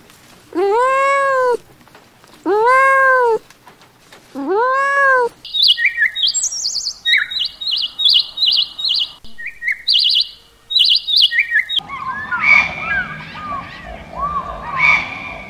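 A kitten meows three times, each meow rising and then falling in pitch. Then a sooty-headed bulbul calls for about six seconds in quick, high, repeated chirps with a short break in the middle. After that, scattered bird chirps carry on over a low background noise.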